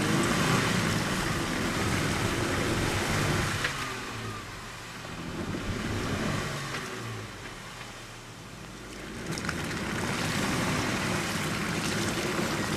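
A vehicle engine running under a broad rushing noise that grows louder and softer by turns.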